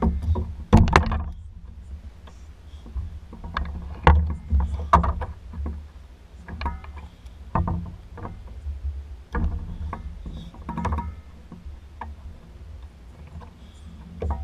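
Irregular knocks and clatter from landing and unhooking a largemouth bass in a sit-on kayak: the fish flopping and gear knocking against the hull, over a steady low rumble. The loudest knocks come about a second in and again around four to five seconds in.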